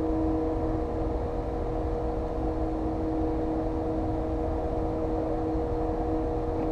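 A boat's motor running steadily: an even two-note hum over a low rumble.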